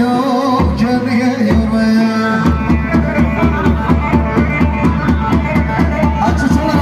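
Loud wedding dance music: a melody over held low notes, joined about two and a half seconds in by a fast, steady drum beat.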